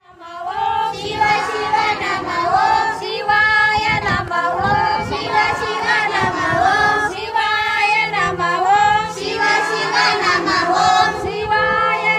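Group of women and girls singing a devotional song together in high voices.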